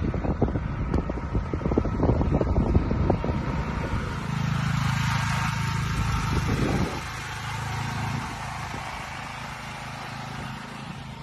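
Wind buffeting the microphone at first, then a MAX portable generator's small engine running with a steady low hum from about four seconds in, dropping in level around seven seconds.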